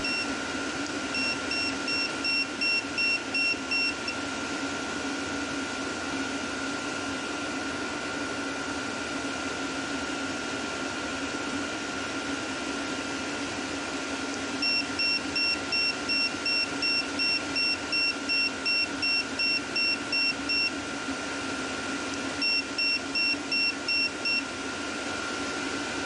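Infrared thermometer beeping rapidly, about three short high beeps a second, in three runs: about a second in, from about fifteen seconds in, and near the end. Underneath, the steady hum of a Vevor diesel heater running at working temperature, with a constant whine.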